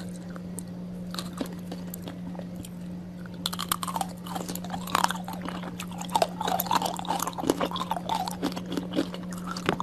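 Close-miked ASMR eating: a person chewing and biting with crisp clicks and crunches, which grow busier and louder partway through. A steady low hum runs underneath.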